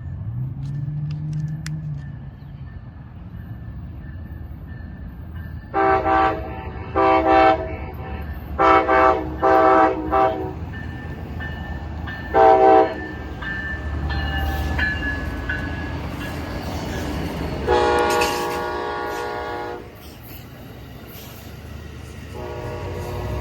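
Amtrak Coast Starlight locomotive's air horn playing a horn show: about half a dozen short chord blasts in quick succession, one longer blast about eighteen seconds in, and another beginning near the end, over the steady low rumble of the passing train.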